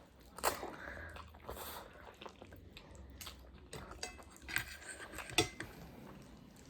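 Close-up chewing of spicy ramen noodles mixed with cheese, with a few short wet clicks.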